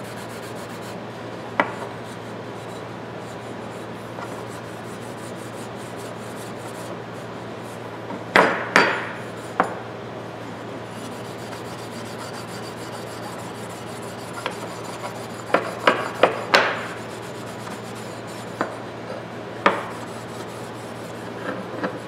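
Steel wool scrubbing the steel handles of old pliers, a faint steady rubbing. It is broken by a few sharp knocks of metal against the bench, loudest in two clusters about eight and sixteen seconds in.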